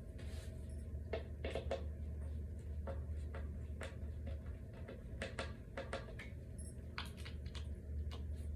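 Scattered light clicks and taps from furniture panels and small hardware being handled during flat-pack dresser assembly, over a steady low hum.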